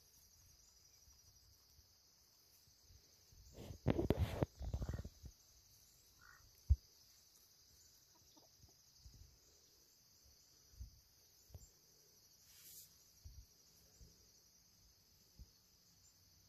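Chickens clucking quietly close to the microphone, with a burst of knocks and rustling about four seconds in and a single sharp tap a couple of seconds later, like pecks at the phone.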